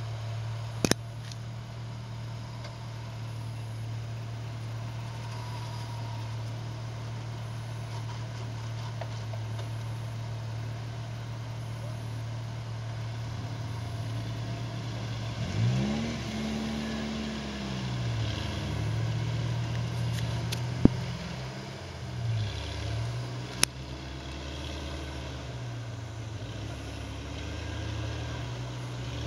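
Off-road 4x4 engine running steadily, revved up and back down several times from about halfway through while the vehicle is being recovered. A few sharp knocks are heard.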